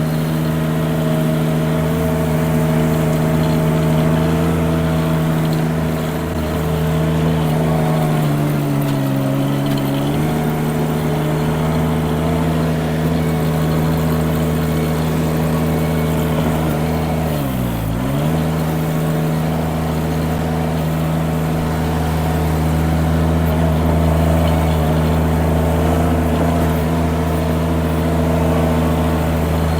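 Mini skid steer engine running steadily at working speed. The pitch sags briefly about eight seconds in, then dips sharply and recovers just past the middle as the engine is pulled down under load.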